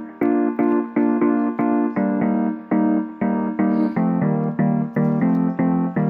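Background music: a piano-like keyboard melody of evenly spaced notes, about three a second.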